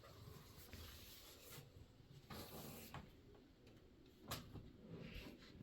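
Near silence: faint room tone with a soft rustle a little after two seconds in and a single light click about four seconds in.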